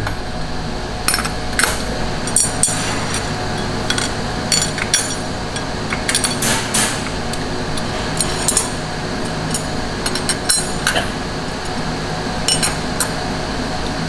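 Stainless steel rods being set by hand into the slots of a machined metal welding jig, with many light metallic clinks that ring briefly, over a steady low hum.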